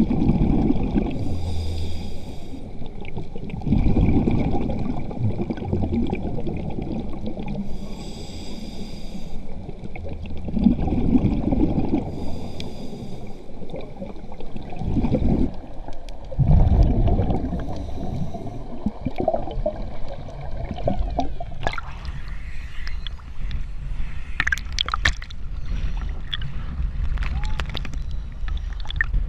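Scuba regulator breathing underwater: a hiss on each inhale and a rumble of exhaled bubbles, a breath every four seconds or so. About 21 seconds in it changes to water sloshing and splashing at the surface.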